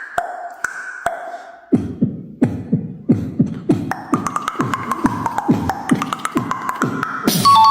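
A short held tone, then from about two seconds in a quick rhythm of falling low thumps, about three a second, under a steady higher tone: a beatbox-like musical rhythm.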